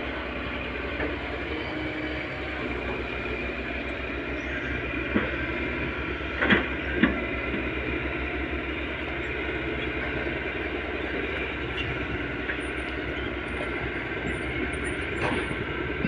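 Tata Hitachi 210 hydraulic excavator's diesel engine running steadily under working load. A few sharp knocks cut through it about five seconds in, twice more around six and seven seconds, and again near the end.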